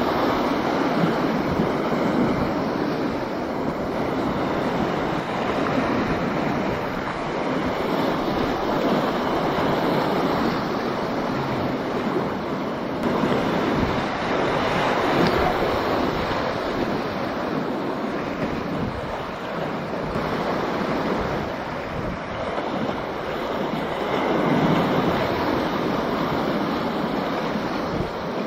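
Whitewater rapids of a grade 3/4 river rushing and churning close around a kayak running them, the noise swelling and easing as the boat passes through waves.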